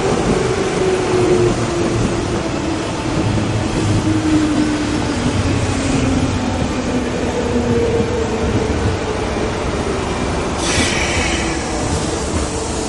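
JR West 201 series electric commuter train running past, with a steady rumble of wheels on rail and a motor tone that slowly falls in pitch. A short hiss comes near the end as the last car goes by.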